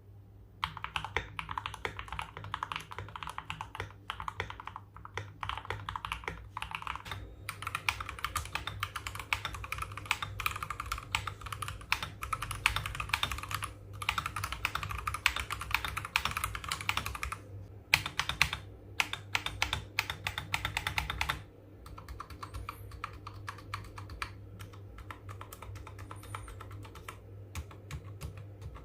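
Fully modded Akko 3098B mechanical keyboard being typed on steadily, with fast, dense keystrokes. About two-thirds of the way through, the typing becomes lighter and quieter.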